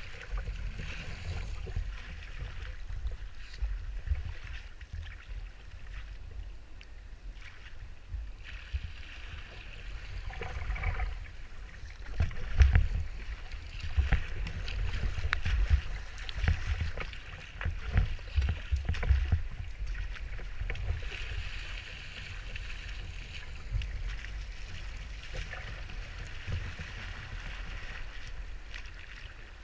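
Strong wind buffeting the microphone of a kayak-mounted camera in irregular low gusts, over the steady hiss and splash of choppy water and breaking surf around the kayak.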